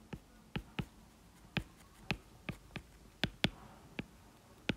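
Stylus tapping on a tablet screen while handwriting a word: about a dozen short, faint, irregularly spaced clicks.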